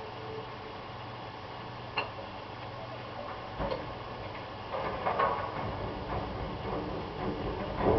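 Distant garbage truck loading: scattered metallic clanks and knocks over a steady low hum. There is a sharp one about two seconds in, a cluster of clatter around five seconds, and a louder bang at the end.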